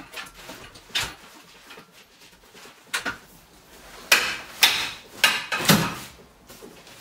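Collapsible wagon's metal frame being pulled open: a couple of sharp clicks, then a run of louder clacks and rattles as the frame spreads fully out a little past halfway.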